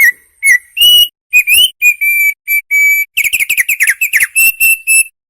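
Opior songbird singing a loud whistled phrase. It starts with a few short clear whistles, then held notes, a fast run of quick falling notes about three seconds in, and three short whistles to close.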